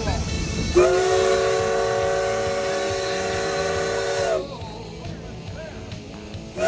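Steam locomotive's chime whistle blown in one long blast, several tones sounding together as a chord; it starts about a second in and cuts off after about three and a half seconds.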